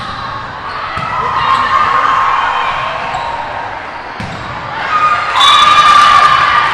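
Volleyball being hit back and forth in a rally: several sharp smacks of the ball, with players and spectators shouting, swelling into loud cheering about five seconds in.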